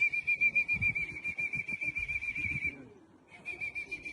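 A trilling whistle blown in long steady calls to bring racing pigeons down into the loft. It breaks off briefly near the three-second mark and starts again, with low thuds under the first call.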